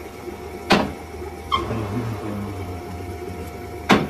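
Workshop machinery running with a steady low hum, broken by sharp metal clanks: one a little under a second in and another near the end, with a lighter ringing clink of metal on metal in between.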